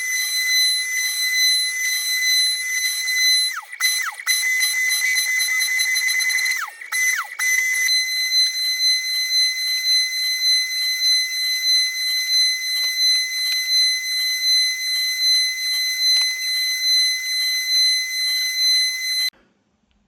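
Genmitsu 3020 PRO MAX V2 CNC router spindle running with a loud, steady high-pitched whine while milling an MDF fixture board. The whine dips briefly twice, and it stops abruptly near the end.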